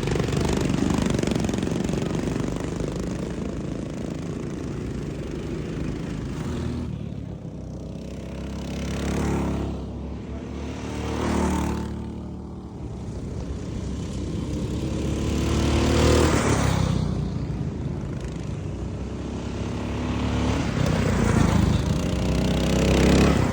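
Racing lawnmower engines running flat out, with several mowers passing close by one after another, their pitch rising and falling as they go past.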